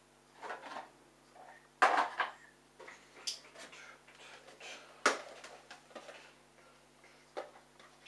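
Laundry being loaded into a Bosch Logixx front-loading washing machine: soft rustling of fabric with irregular clicks and knocks against the drum and door, the sharpest about two and five seconds in.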